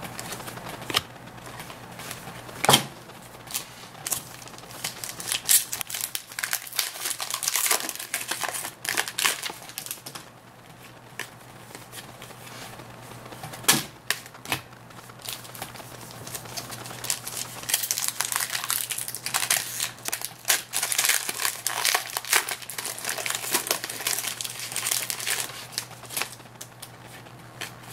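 Foil trading-card pack wrappers crinkling and crackling, with sharp snaps and clicks of cards being handled and shuffled, busiest in the second half.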